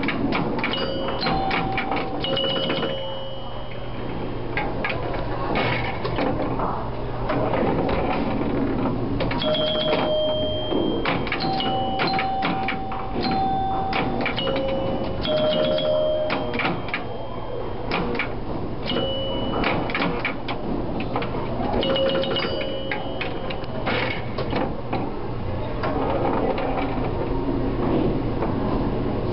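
Old electromechanical pinball machine in play: dense clusters of sharp relay, bumper and score-reel clicks, with its bells ringing in short tones of about half a second to a second, over a steady low hum.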